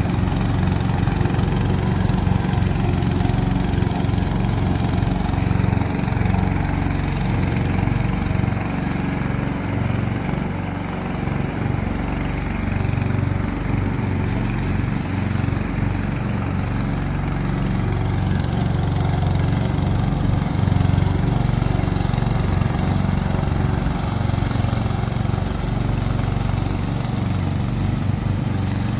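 Remote-control lawn mower's engine running steadily.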